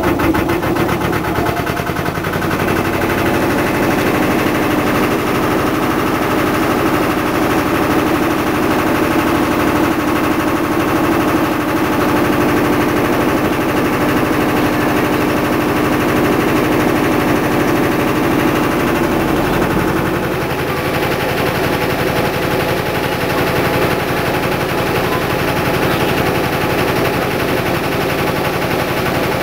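Canal trip boat's inboard engine running under way, a loud, fast, even chugging beat that holds steady throughout.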